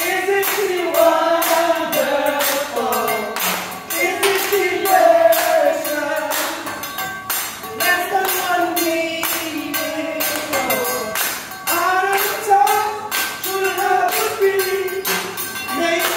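A hibachi chef singing a song unaccompanied, keeping the beat with sharp metal taps of his spatulas on the steel griddle, about two to three taps a second.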